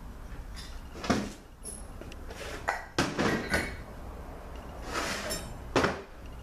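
Hard metal clunks and clinks as the transmission's oil pump housing, plate and gears are lifted out and set down on a steel workbench: a knock about a second in, a cluster of knocks around three seconds, and another near the end.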